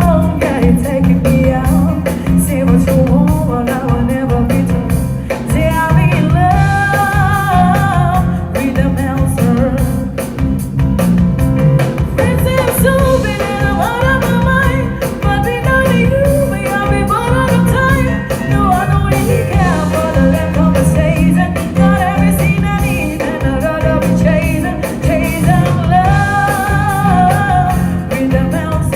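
Music: a song with a singing voice carrying the melody over a steady band backing of drums, bass and guitar.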